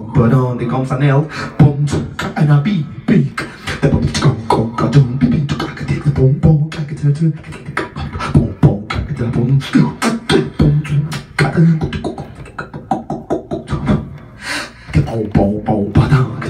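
A man beatboxing into a handheld microphone: fast, dense vocal kick, snare and click sounds in a steady rhythm over a sustained low tone.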